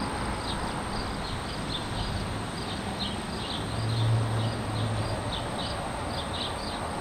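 Outdoor ambience of steady wind noise with short high chirps repeating every third to half second, and a low hum that swells briefly about four seconds in.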